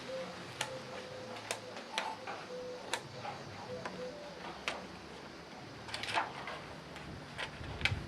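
Scissors snipping through a sheet of shrink plastic: sharp, irregular clicks, roughly one a second.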